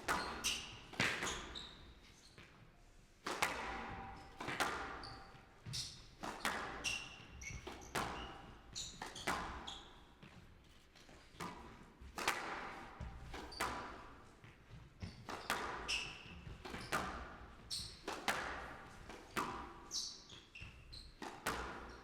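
A squash rally: the ball cracking off rackets and smacking the court walls about once a second, with short squeaks from players' shoes on the court floor between the shots.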